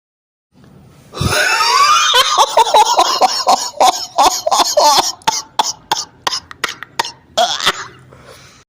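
Laughing sound effect: a loud, high laugh that breaks into a run of short, rhythmic bursts, about three a second, with one last louder burst near the end.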